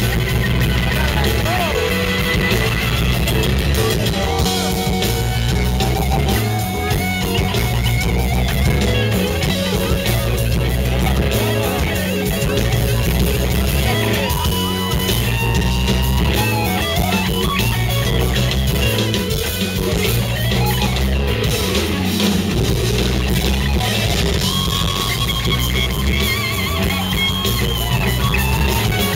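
Live rock band playing an instrumental passage. An electric guitar takes the lead with bending, gliding notes over bass guitar, drum kit and keyboards.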